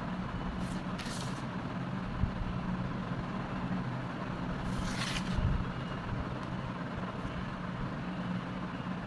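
Steady low background hum, with two brief hissing scrapes, one about a second in and one about five seconds in.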